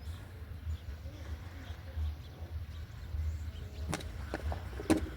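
Low, steady rumble of a tipper truck's diesel engine, with a few sharp knocks near the end.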